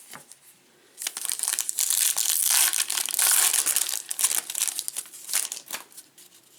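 A 2019 Topps Holiday baseball card pack's wrapper being torn open and crinkled by hand, a dense crackle from about a second in to past the middle, then a few scattered crackles as the cards are pulled out.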